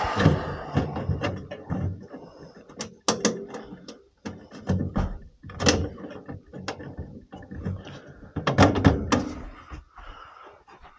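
Hands-on work at a gas furnace: irregular metal clanks, knocks and clicks of tools and parts being handled, with a loud rush of noise right at the start and a tight cluster of knocks about two thirds of the way through.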